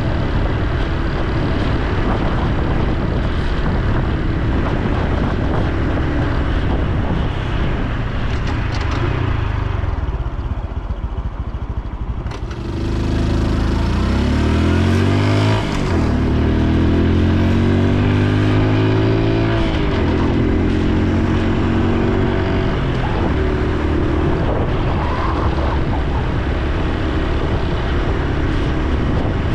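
Honda Super Cub C125's single-cylinder four-stroke engine running under way. Its note dips before halfway, then the bike accelerates with the pitch rising through two gears, a short drop at each shift, and settles into a steady cruise.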